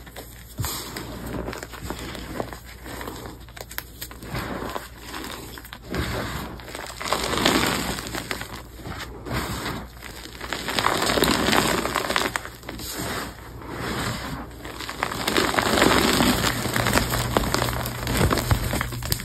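Hands crushing and crumbling soft pasted gym chalk blocks: dry crunching and crackling, with loose powder sifting through the fingers and falling, in repeated swells a second or two long.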